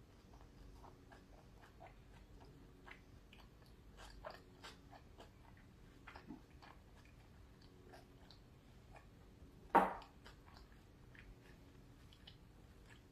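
Close-miked chewing of a mouthful of cheeseburger: a run of soft, irregular mouth clicks and smacks, with one much louder smack about ten seconds in. A faint steady hum runs underneath.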